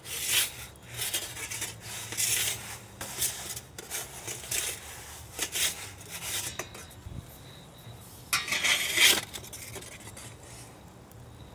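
Perforated metal pizza peels scraping and clattering on the wood-fired oven's floor as the pizza is turned, in many short strokes, then a longer, louder scrape about eight seconds in as a peel slides under the pizza.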